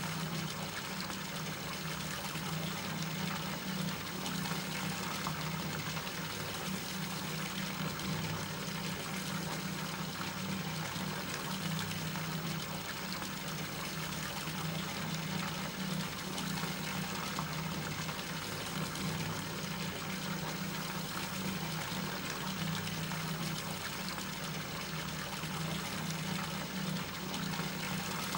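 Steady rush of running water in a bathroom, with a low hum underneath.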